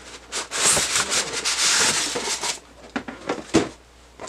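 Styrofoam packing block being slid out of its cardboard box, a long scraping rub, then a few short knocks as it is set down on a wooden desk.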